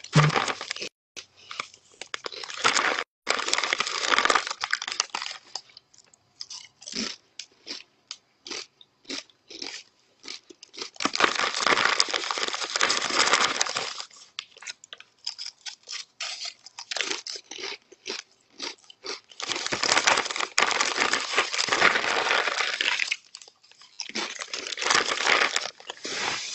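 Close-up crunching and chewing of Doritos tortilla chips, with the foil chip bag crinkling as a hand reaches into it. Short sharp crunches come in quick runs, broken by several longer stretches of steady rustling.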